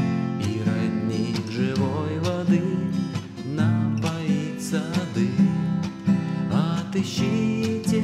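Fender acoustic guitar strummed in a steady rhythm, with a man singing over it.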